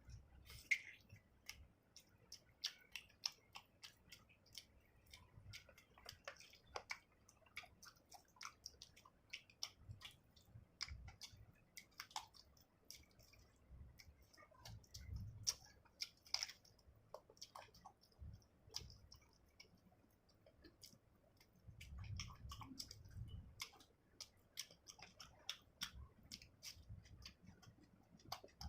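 A person chewing food close to the microphone with wet, irregular mouth clicks and smacks, quiet throughout.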